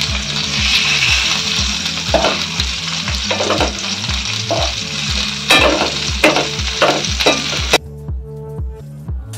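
Red snapper pieces coated in rice flour shallow-frying in oil in a pan: a steady sizzle with several louder bursts from about two seconds in. The sizzle cuts off suddenly near the end, leaving background music with a steady beat.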